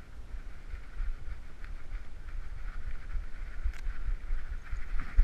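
Rapid, irregular thumps from a trotting dog's steps jolting a GoPro Hero3 strapped to its back, growing stronger toward the end, with one sharp click near the end.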